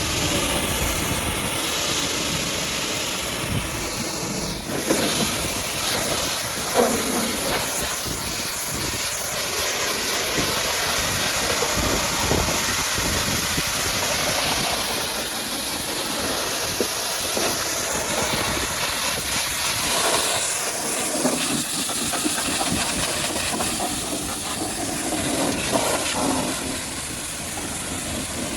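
High-pressure washer jet spraying a muddy truck: a steady hiss of water spray with splashing and spatter that shifts in level as the jet moves. A thin high tone runs under it and drops out about twenty seconds in.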